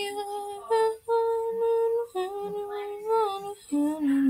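A young woman singing a slow tune to herself, unaccompanied, in long held notes. The last phrase drops lower, about three and a half seconds in.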